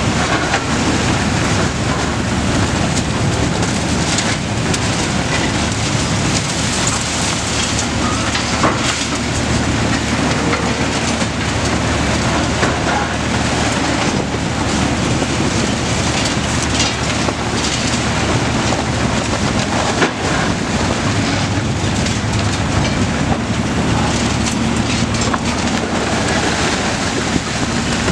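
Large demolition excavators' diesel engines running under load as their hydraulic concrete shears crush a concrete bridge deck: a steady engine drone under continuous crackling of breaking concrete and falling rubble, with a few sharper cracks, the loudest about twenty seconds in.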